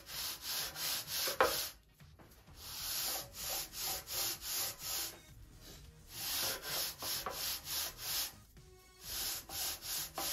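A long aluminium sanding bar is drawn back and forth along the edge of a balsa sheet, squaring the edge for a tight butt joint with the next wing skin. Quick rasping strokes come about three a second, in runs of several with short pauses between.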